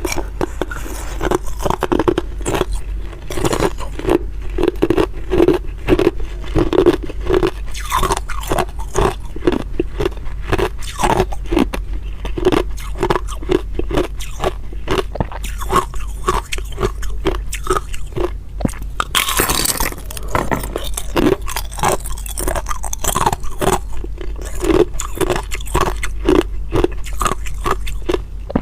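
Hard ice being bitten and chewed close to the microphone: rapid, continuous crunching. A brief scraping sound comes about two-thirds of the way in.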